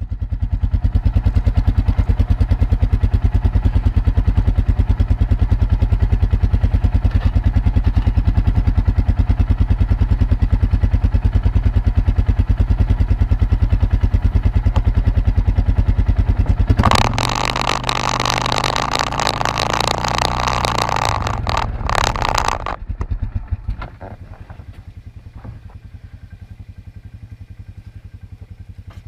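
ATV engine running steadily with an even pulse. About 17 s in, a louder rushing, clattering noise joins for roughly five seconds, and from around 24 s the engine sound is much quieter.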